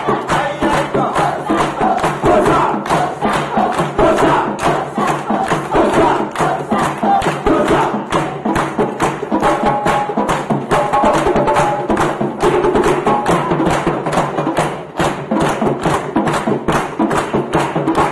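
Live percussion ensemble playing a fast, even Caribbean-style beat, with a group of boys' voices chanting and singing along.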